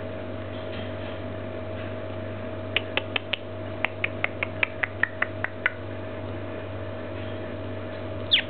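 A quick run of about fifteen short, sharp clicks over some three seconds, starting about three seconds in, from eclectus parrots in their cage, over a steady electrical hum.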